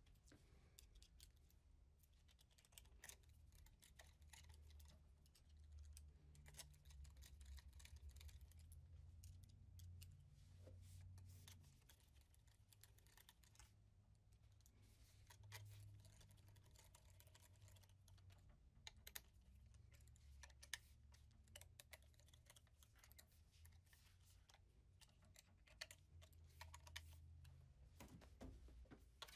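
Near silence, with faint scattered clicks and small taps of a screwdriver and screws as a direct-drive motor is fastened to a sewing machine, over a low hum.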